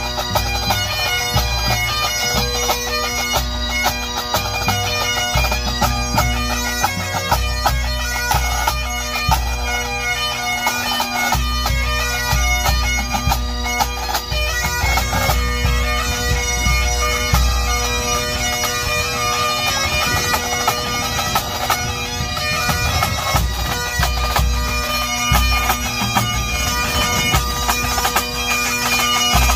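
Pipe band playing: Highland bagpipes sound a tune over their steady drones, with snare drums rattling and a bass drum beating underneath.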